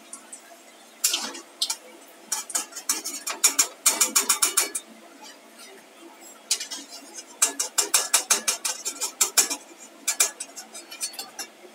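A slotted steel spatula scraping and clinking against a metal kadhai in two quick runs of rapid strokes, as fried potato fritters are scooped out of the oil.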